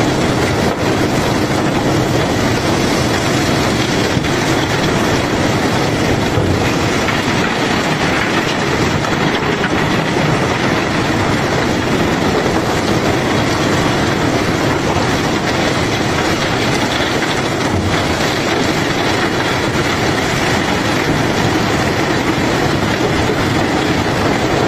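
Gravel-unloading machinery running with a steady, loud rumble and rattle, unbroken throughout.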